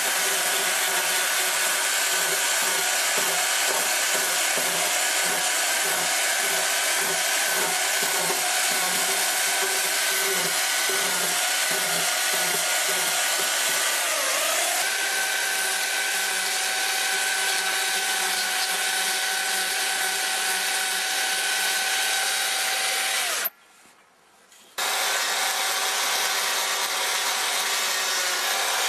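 Stihl chainsaw running at high revs, its chain cutting into a round log to carve a notch. The engine note wavers at first and holds steadier and slightly higher from about halfway, and the sound cuts out for about a second near the end.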